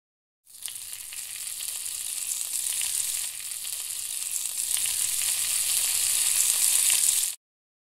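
Sizzling like food frying in a pan, used as a sound effect for scorching sun heat. It starts about half a second in, slowly grows louder, and cuts off suddenly near the end.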